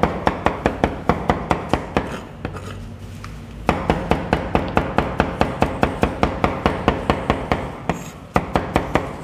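Large knife rapidly chopping tomatoes, onion and parsley on a plastic cutting board: fast, sharp knocks at about five a second, with a pause of over a second about two seconds in and a short break near the end.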